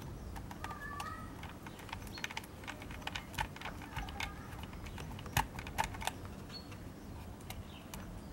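Small screwdriver driving a screw into a quadcopter's plastic landing-gear mount by hand: irregular light clicks and ticks of the tool and plastic parts, a few sharper ones past the middle.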